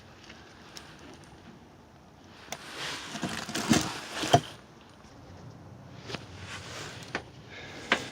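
Work noises from a rear brake pad change: scattered clicks and knocks of tools and brake parts being handled, with a louder scraping stretch and two sharp knocks about halfway through.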